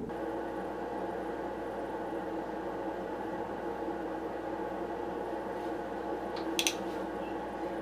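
Steady low room hum. About six and a half seconds in, two quick clicks as makeup brushes are handled.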